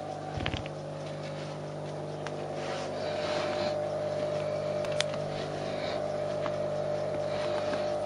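A steady machine hum made of several constant pitches, growing slightly louder about three seconds in, with rustling and a few sharp clicks over it, one clear click about five seconds in.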